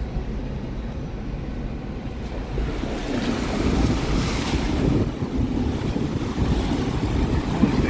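A Toyota LandCruiser 300 series drives through a creek crossing, with water splashing and rushing against the wheels and body over the vehicle's low rumble. The splashing grows louder from about three seconds in, as the water gets deeper.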